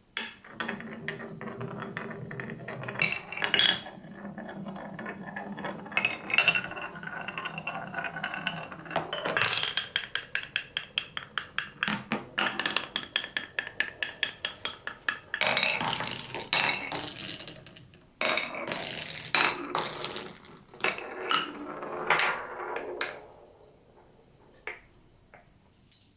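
A glass marble rolling down a wooden marble run: a steady rolling rumble on wood, broken by clicks and knocks as it drops and turns. In the middle comes a run of quick, even clacks, about three or four a second, as it rolls through a wavy track of carved hollows. The sound dies down near the end.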